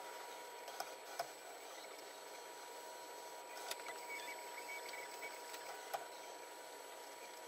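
Faint steady hiss with a thin, steady high-pitched tone, broken by four short sharp clicks.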